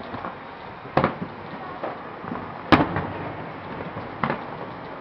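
Aerial firework shells bursting: three sharp bangs about one and a half seconds apart, the middle one loudest, with a fainter pop between the first two, over a steady background noise.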